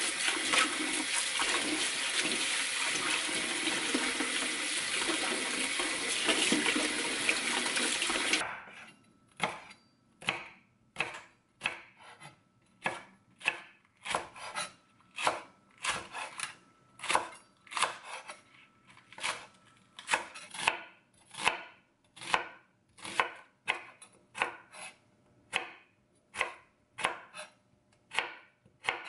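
Tap water running hard into a bowl of soybean sprouts in a stainless-steel sink, cutting off suddenly about a third of the way in. Then a chef's knife chopping green onion and onion on a wooden cutting board in steady strokes, a little under two a second.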